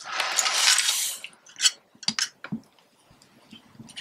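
Aluminium foil crinkling as a steamed, foil-wrapped tamal is unwrapped: a dense rustle for about the first second, then a few scattered crackles.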